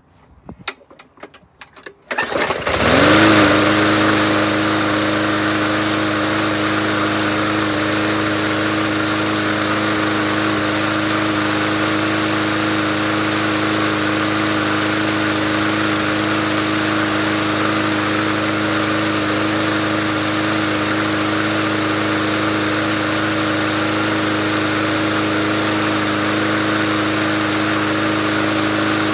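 2016 Yard Machines 20-inch push mower's overhead-valve engine starting: a few clicks and rattles, then it catches about two seconds in, revs up briefly and settles to run at a steady speed.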